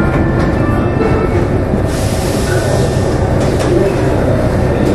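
Rubber-tyred Paris Métro line 4 train running through a tunnel: a steady rumble of tyres and running gear. Faint whining tones sound in the first second, and a spell of high hiss comes about two seconds in.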